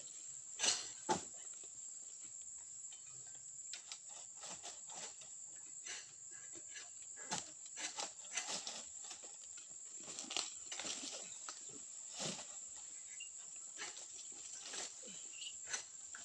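Irregular sharp knocks and clatters of pole-pruning oil palm fronds, the loudest two about a second in, over a steady high-pitched drone.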